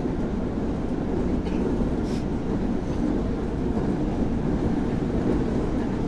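Steady low rumble of a moving train, heard from inside the carriage.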